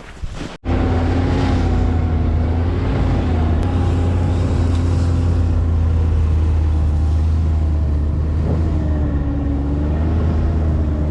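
An engine running steadily at near-constant speed, a strong low drone with a slightly wavering pitch, starting abruptly about half a second in.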